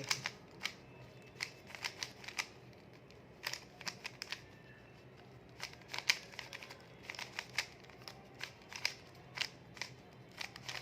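Plastic 3×3 Rubik's cube being turned by hand: irregular quick clicks as the layers snap round, some in fast runs of two or three.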